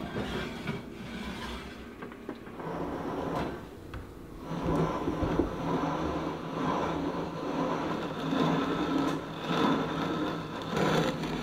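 Hand-cranked grain mill grinding whole grain into flour: a steady, gritty grinding that starts about four and a half seconds in. Before it, a few light knocks and clatter.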